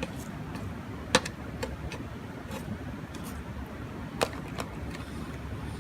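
A few scattered sharp clicks, the two loudest about a second in and about four seconds in, over a steady low rumble.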